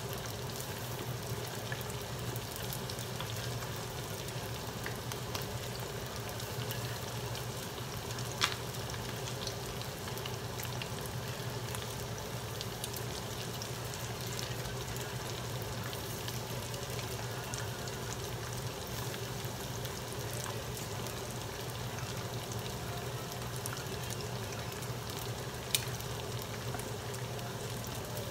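Potato-starch-coated chicken wings frying in hot vegetable oil: a steady sizzle, with two sharp clicks of metal tongs against the pan, one about eight seconds in and one near the end.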